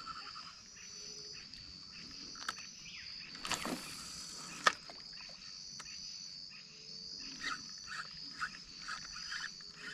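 Outdoor wildlife ambience by a river: a steady high insect drone, a brief rush of noise about three and a half seconds in, and a run of short repeated animal calls near the end.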